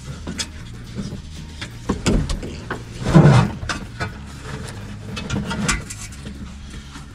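Clunks and knocks of a metal switch box and seat belt hardware being handled and shifted around a truck cab, with a heavier thump about three seconds in, over a low steady hum.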